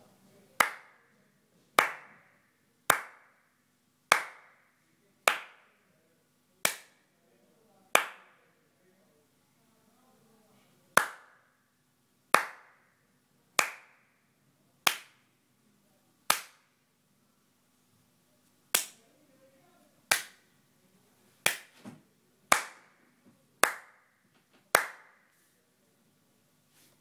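Single hand claps, about one a second, each a sharp crack that dies away quickly, with two longer pauses between runs; each clap is there to trip the clap switch and advance the 555-timer clap counter.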